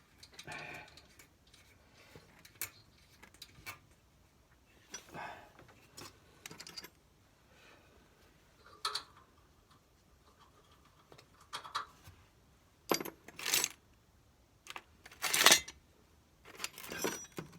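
Loose metal nuts and hardware clinking and rattling as they are sorted through by hand in search of a nut that fits. The clinks come scattered, a few at a time, and are busiest and loudest near the end.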